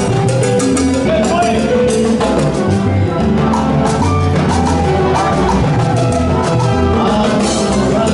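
Live salsa band playing: piano, bass, timbales, congas and bongos under a trumpet and trombone section, with fast, even percussion strokes.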